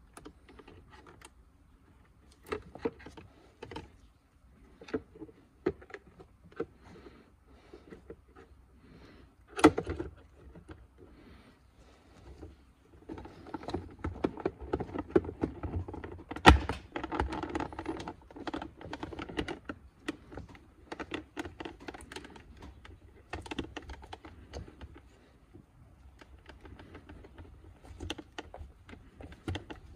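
Plastic side-mirror parts handled with gloved hands: scattered clicks and taps, with two sharper knocks about ten and sixteen seconds in. From about halfway, a dense rustling as a microfibre towel is rubbed over the mirror housing, thinning out again near the end.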